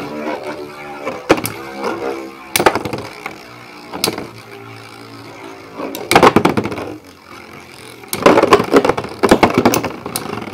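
Metal Fight Beyblade spinning tops, Dark Bull and Lightning L-Drago, whirring with a steady drone in a battle stadium. They strike each other in single sharp clashes a few times, then in rapid flurries of clashing about six seconds in and again near the end.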